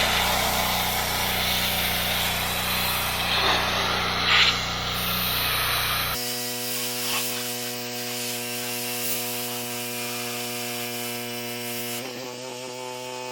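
Pressure washer running and spraying water onto a truck's hood, a loud hiss of spray over a steady machine hum. About six seconds in the spray stops abruptly and a steady, even-pitched hum carries on.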